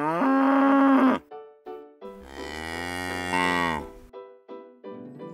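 Cow mooing twice: a moo of about a second at the start, then a longer, deeper moo about two seconds in whose pitch falls at its end.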